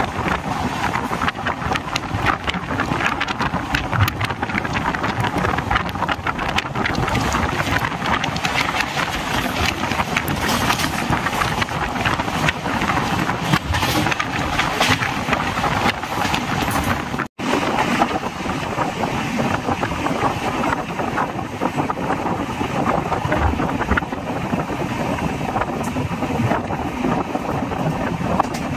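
Passenger train running at speed, with wind rushing over the microphone and a steady rattle of rail noise. The sound drops out for an instant about 17 seconds in.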